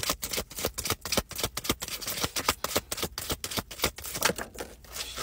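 A deck of tarot cards being shuffled by hand: a fast, dense run of crisp card clicks.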